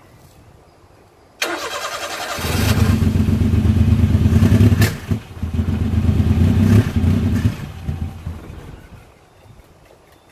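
A Honda Acty mini truck engine is cranked by its starter, catches after about a second and runs for roughly five seconds. It stumbles once with a sharp pop midway, then dies away. The engine is running rich because its carburetor is flooding through a stuck float needle valve.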